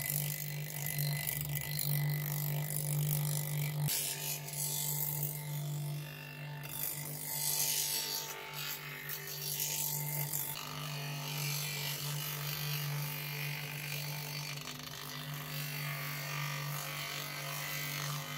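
Motor-driven abrasive wheel running with a steady hum while a wooden axe handle is pressed against it and sanded, a rasping hiss of wood being ground that swells and fades as the handle is moved across the wheel.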